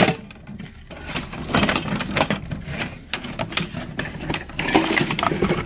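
Irregular clatter and knocks of ceiling fan blades and parts being handled and shuffled, with a steady low rumble underneath.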